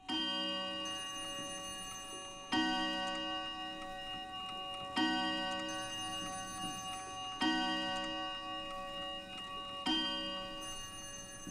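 Film soundtrack music: a ringing chord struck five times, about every two and a half seconds, each time sustained and slowly fading.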